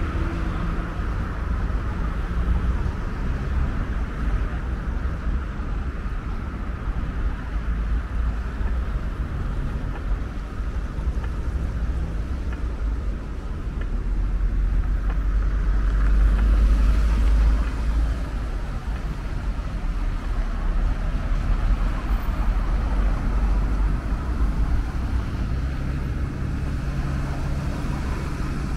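Street traffic noise outdoors: a steady low rumble of passing cars, swelling for a few seconds about halfway through.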